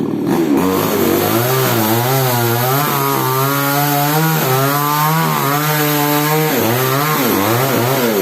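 Falcon mini chainsaw cutting into mango wood. The engine note sags and recovers as the chain bites under load, then rises and falls a few times near the end as the throttle is blipped.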